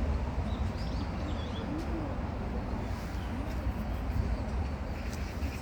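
Steady low rumble with birds calling over it: a few short high chirps early on, and low curved calls that recur several times.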